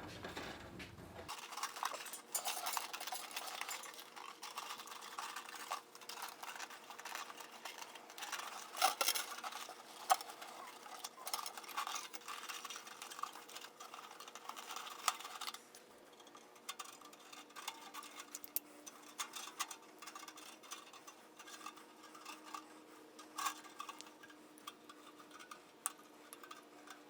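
Light clinks, ticks and scraping from hands handling small hard parts at a workbench, busy for about the first fifteen seconds and then sparser over a faint steady hum.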